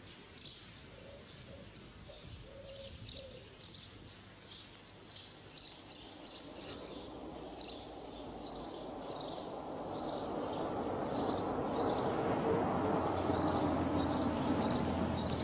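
Small birds chirping over and over, with a pigeon cooing in the first few seconds. From about six seconds in, an approaching car's engine grows steadily louder.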